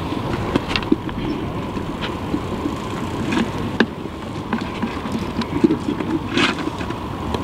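Steady rushing noise of sea and wind at the water's edge, with scattered sharp clicks and taps from rods, tackle and hooked horse mackerel being handled.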